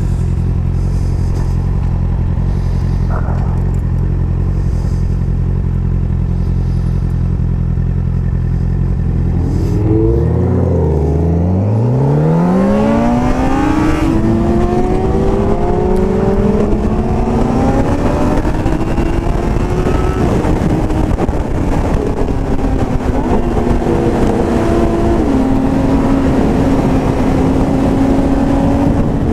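Sport motorcycle engine idling steadily, then about ten seconds in revving up and pulling away, its pitch climbing quickly and then running high and fairly steady under way, with a step in pitch near the end like a gear change. A rush of wind noise rises once the bike is moving.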